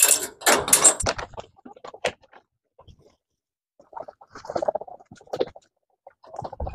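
Chickens clucking, a cluster of short low calls about four seconds in and again near the end, after a burst of rustling at the start.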